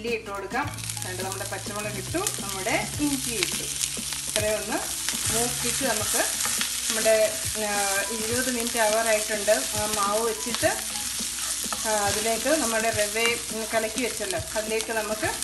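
Mustard seeds, cumin, urad dal and peanuts sizzling as they fry in a nonstick pan, stirred with a wooden spatula together with chopped green chilli and ginger. A wavering pitched sound runs beneath the steady sizzle.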